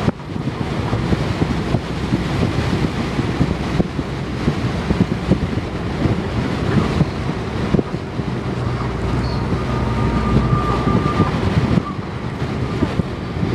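Steady engine and road noise inside a moving vehicle on a highway, with frequent small rattles and knocks from the cabin.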